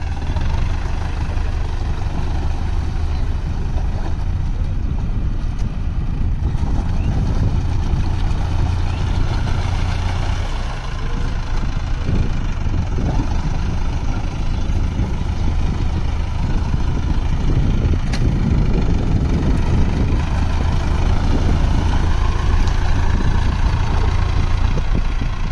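Mahindra Arjun Novo 605 DI-i tractor's four-cylinder diesel engine running steadily as the tractor drives through flooded paddy mud.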